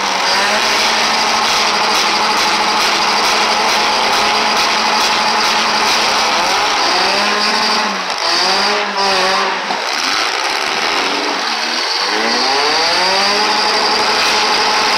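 Engines of several four- and six-cylinder demolition derby cars revving hard together in a loud, dense roar, their pitch sweeping up and down repeatedly through the middle stretch.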